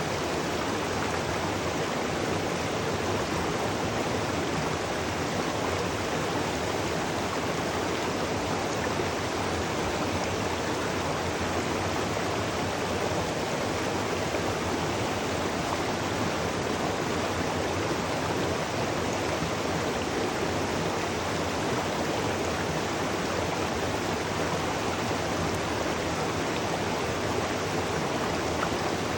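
Waterfall rushing: an even, steady roar of falling water with no changes.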